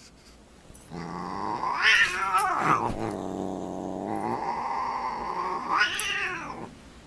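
Siamese cat growling and yowling: a long low growl that twice swells into a loud, higher yowl, about two seconds in and again near the end, with a short break between. It is a cat's angry warning while squaring off with a dog.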